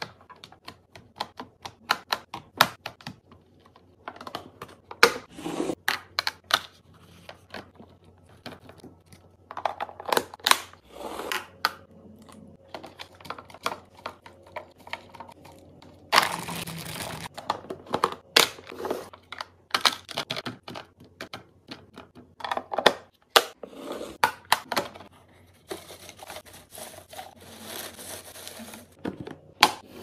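Clear plastic produce storage containers handled on a granite countertop: many sharp clicks and taps of the bin, vented tray and lid, with a few short rustling stretches as broccoli florets go into the container.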